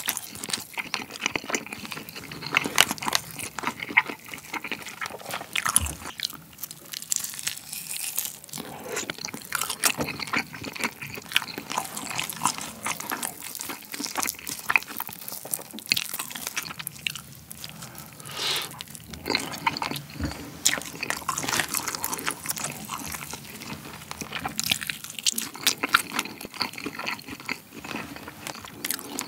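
Close-miked chewing and biting of roasted basil-pesto chicken breast, a dense run of small wet clicks and smacks. Partway through, gloved hands pull the meat apart.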